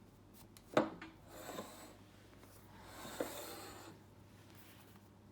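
Foam squishy toys being handled: a sharp knock about a second in, then two rasping rubs of about a second each, the second with a click in it.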